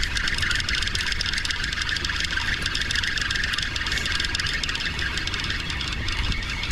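Spinning reel being cranked steadily, its gears giving a continuous whirring with fine rapid clicking over a low rumble.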